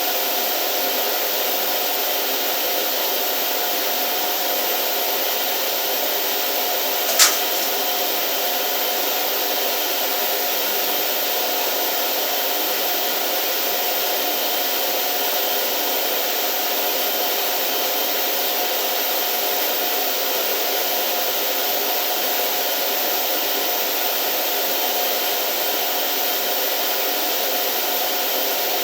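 Steady, loud machinery drone, an even rushing noise with faint steady hums in it, with one sharp click about seven seconds in.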